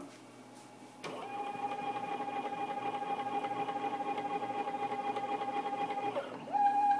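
CNC router's stepper motors whining at a steady pitch as the machine moves the head through a dry-run drawing path. The whine starts about a second in, glides briefly in pitch near the end and then comes back louder.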